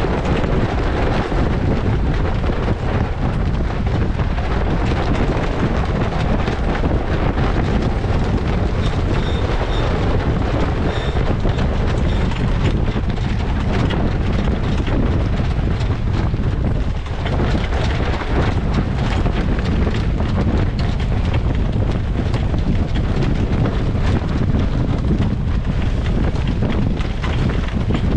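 Strong wind buffeting the microphone over the rush of water along the hull of a small sailboat heeled and sailing upwind in a rising blow. The rumbling noise is loud and steady throughout.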